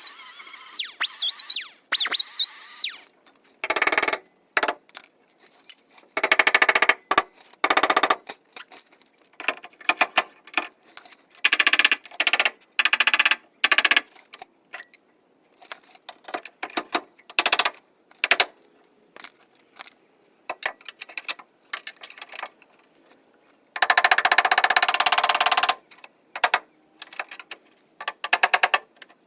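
Stud welder gun firing on sheet metal in repeated short crackling, buzzing zaps of about half a second to two seconds, with clicks in between, as studs are welded on to pull out a dent.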